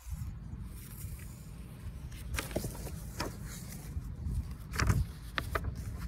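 Paper pages of a picture book being handled and turned: a few short clicks and rustles from about two seconds in, the strongest near five seconds, over a steady low rumble.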